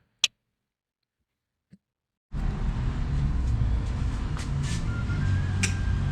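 A single click, then about two seconds of silence, after which a steady low rumble starts abruptly and carries on, with a few faint light ticks over it.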